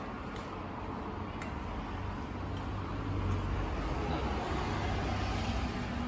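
Steady low hum and background noise, with a few faint ticks.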